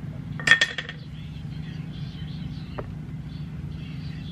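A quick run of sharp clicks about half a second in as a plastic makeup container is handled and opened, then one faint click, over a steady low hum.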